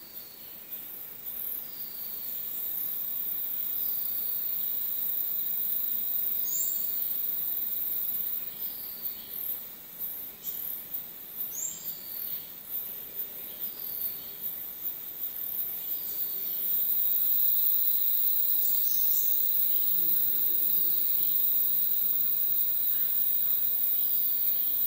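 Rainforest insect chorus: a dense, high-pitched shrilling throughout. Short calls falling in pitch repeat every second or two, and a steady high tone joins about two-thirds of the way through as the chorus grows louder.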